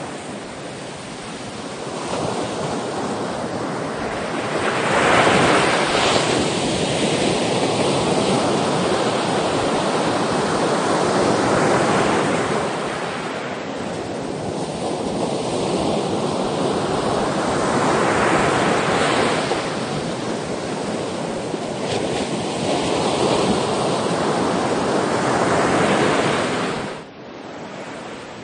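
Sea waves breaking and washing up the shore, the surf swelling and ebbing in slow surges about every six seconds, with a sudden drop in level near the end.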